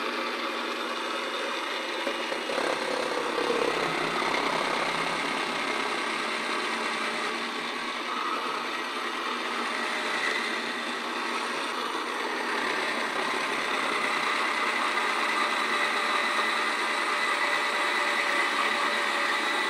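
Yonanas frozen treat maker running steadily, its motor whirring as frozen banana is pushed down the chute and ground by the spinning blade into soft-serve.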